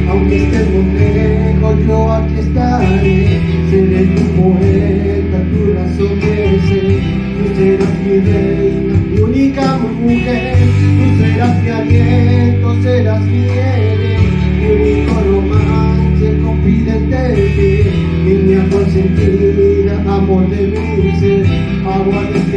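A man sings into a microphone over a recorded backing track with guitar, both amplified through a PA speaker.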